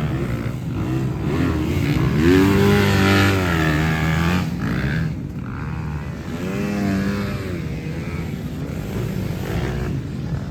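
Off-road racing motorcycle engines revving on the sand, pitch climbing and dropping as riders work the throttle, with a steady rough engine noise from other bikes underneath. The strongest revving comes about two seconds in and again around the middle.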